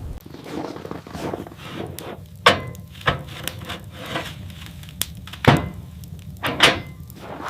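Irregular sharp knocks and thuds, as of wood being struck or handled, with rubbing sounds between them; the three loudest come about two and a half, five and a half and six and a half seconds in.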